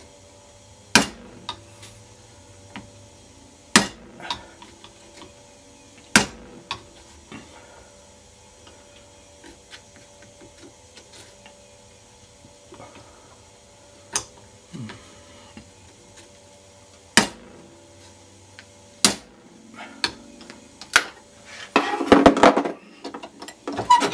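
Sharp single hammer taps on a flat blade set in the seam of a plastic laptop-charger case clamped in a bench vise, about eight blows a few seconds apart, trying to crack the glued seam open. Near the end there is a short burst of clattering.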